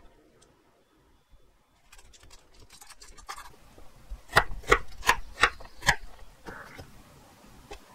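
Chef's knife slicing a carrot into strips on a wooden cutting board: a few light taps, then about halfway through a run of about five sharp chops, roughly three a second.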